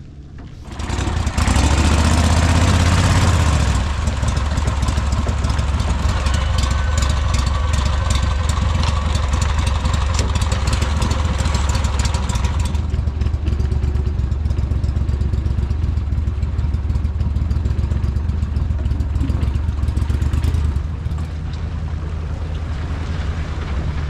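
ProDrive surface-drive mud motor running a boat at speed, with the prop throwing a wake; it comes up loud about a second in, holds a steady drone, and is throttled back near the end.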